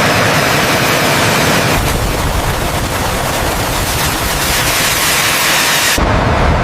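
A loud, steady rushing hiss spread across high and low pitches. A deep rumble joins it about two seconds in, and it cuts off abruptly near the end.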